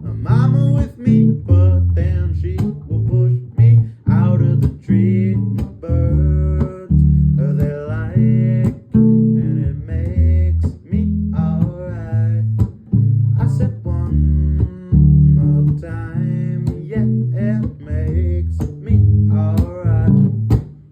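Music: plucked guitar over a bass line, with a bending melody line above.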